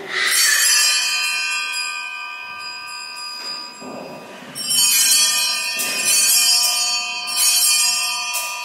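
Altar (sanctus) bells, a cluster of small bells, shaken at the elevation of the chalice during the consecration. There is one ring at the start that is left to hang on, then several more shakes about a second apart in the second half.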